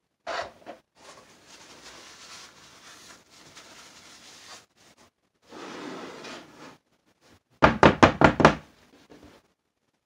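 Wooden soap loaf mold filled with hot process soap being rapped on the countertop, about seven quick knocks in a row near the end, which settles the soap and knocks out air pockets. Before that come quieter rustling and the mold sliding across the counter.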